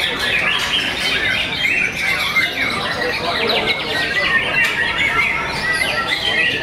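Caged white-rumped shamas (murai batu) singing at once in a dense, overlapping chorus of whistles, trills and chirps that never pauses.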